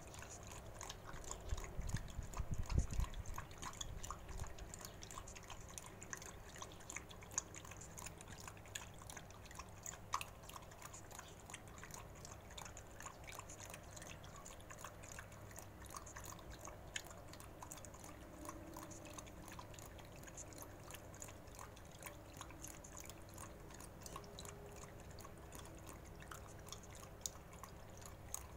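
A dog lapping and chewing broth with greens from a bowl: a steady run of small wet clicks and slurps. A brief low rumble about two seconds in is the loudest sound.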